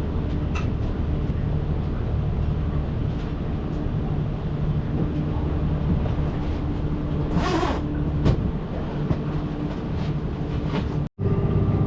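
Boat motor running steadily with a constant hum. A short rush of noise comes about seven seconds in, and the sound cuts out for an instant near the end.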